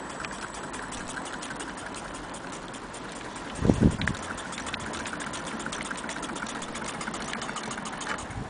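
Antique Willcox & Gibbs chain stitch sewing machine running and stitching fabric, a rapid, even mechanical ticking. A single louder thump cuts in near the middle.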